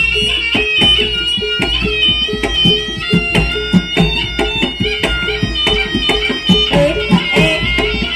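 Loud jaranan dance music: quick drum strokes under bright, repeating melodic notes.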